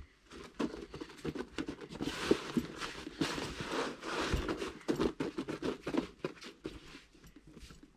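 Hands rubbing, pressing and squeezing damp, crumbly breadcrumb-based groundbait in a groundbait bowl: a run of soft rustling and scraping strokes, with a low bump about halfway through.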